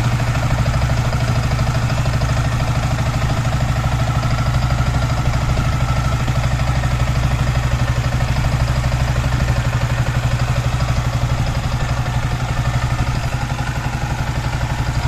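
Yamaha R15 V3's single-cylinder engine idling steadily at an even speed, with its engine noise fault repaired.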